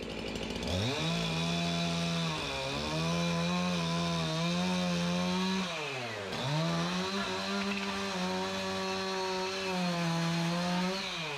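Two-stroke gas chainsaw revved up and cutting through the wooden boards of old livestock stalls. It runs at high revs, drops briefly about six seconds in, revs up again and eases off near the end.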